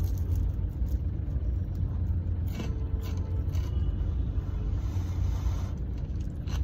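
Steady low rumble of a car, heard from inside the cabin, with a few faint crunches of chewing on a crisp fried vada.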